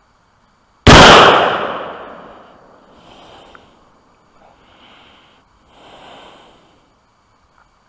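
A single shot from a Colt 6920 AR-15 carbine with a 16-inch barrel and carbine-length gas system, firing 5.56 mm, about a second in. The report is sharp and very loud, and its echo trails away over about a second and a half.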